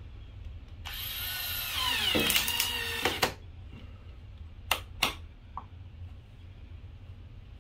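Porter-Cable 20V cordless drill driving a screw into a blind mounting bracket for about two and a half seconds, its motor whine falling in pitch as the screw tightens before it stops suddenly. Two sharp clicks follow a second or so later.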